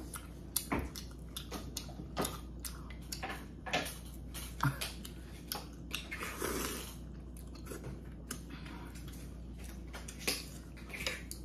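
A person eating rice cake and dumpling soup close to the microphone: chewing with wet mouth smacks and many short clicks. About six seconds in comes a longer slurp from a spoonful of soup.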